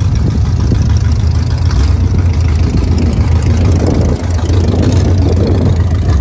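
Rat-rod pickup's engine running through open exhaust headers as it cruises alongside at highway speed, with a steady low rumble under wind and road noise.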